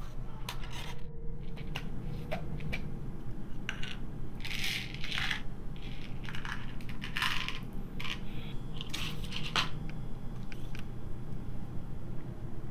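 Pills rattling in a plastic prescription bottle as they are shaken out into a hand: scattered clicks and three short rattles, over a steady low hum.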